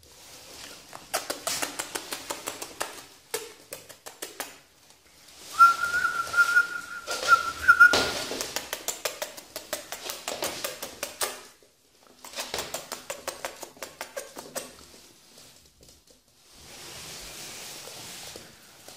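Yorkshire terrier puppy's claws clicking and scrabbling rapidly on a laminate floor in several bursts as it scrambles about in play. A steady high tone is held for about two seconds near the middle.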